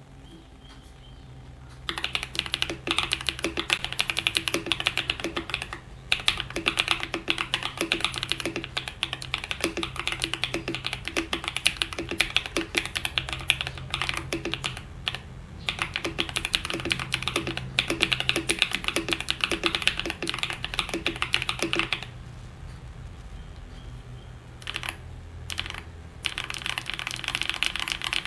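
Rapid typing on a foam-dampened mechanical keyboard with hand-lubed Ajazz Banana tactile switches and OEM-profile keycaps, a dense run of keystrokes. The typing starts about two seconds in, pauses briefly twice, and thins to a few scattered keystrokes before a final flurry near the end.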